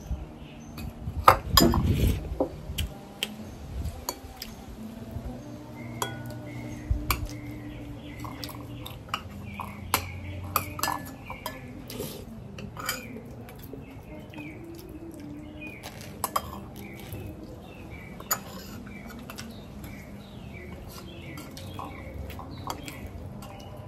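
Metal utensils clinking and scraping against pots and dishes in irregular sharp clinks and knocks, the loudest in the first two seconds.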